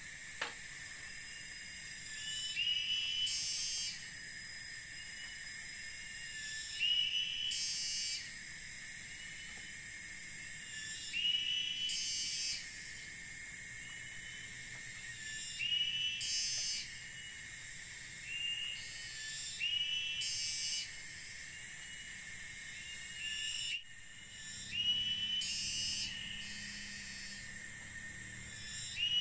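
Rainforest insect chorus: a high, hissing buzz that swells and cuts off in waves every two seconds or so, with a short curved chirp repeating between the waves.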